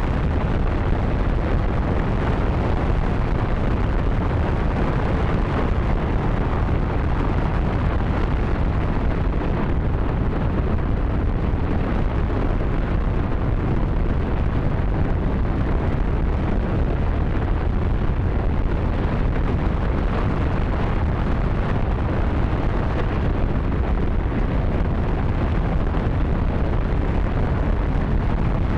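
J-2X liquid-hydrogen/liquid-oxygen rocket engine in a static test firing: a loud, steady, unbroken noise, heaviest in the low end.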